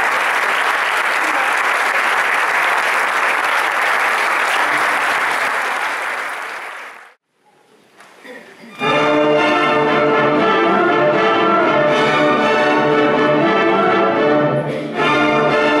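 Audience applause that dies away about seven seconds in. After a moment of quiet, an orchestra with a prominent string section starts playing, with a brief break near the end.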